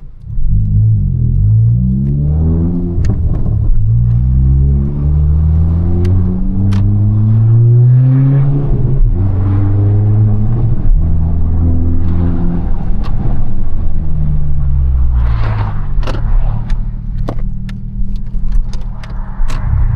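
Turbocharged 1.5-litre four-cylinder engine of a 2022 Honda Civic Si accelerating hard. The engine note climbs in pitch and drops back several times as it is shifted up through the gears. A few sharp clicks come in the second half.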